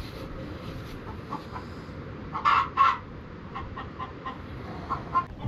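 Chicken clucking: a run of short clucks, with two louder calls close together about two and a half seconds in.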